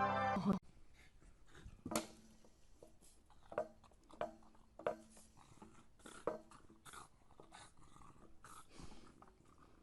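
A puppy giving a string of short yips and little barks, about ten, spaced irregularly and fairly faint.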